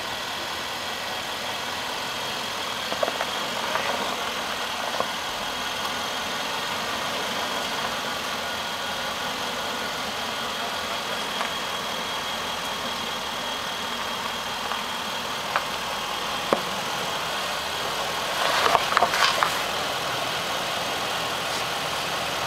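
Land Rover SUV engine idling steadily as the vehicle creeps slowly over rocks, with a few sharp clicks and a short burst of crunching from the tyres on rock and gravel about three-quarters of the way through. A steady high thin whine runs underneath.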